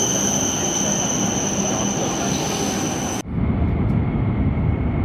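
Shinkansen train at the station giving off a loud, steady high-pitched squeal. The squeal cuts off abruptly about three seconds in and gives way to a low, steady rumble.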